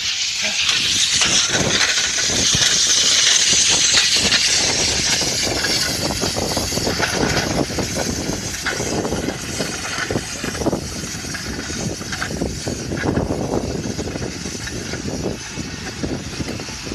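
A weighted sled dragging and scraping over pavement, a steady rough grinding noise that surges unevenly with each pull. A bright hiss sits over it for the first few seconds.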